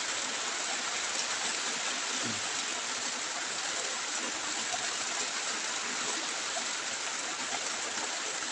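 Steady rushing of flowing water, an even background wash with no change in level.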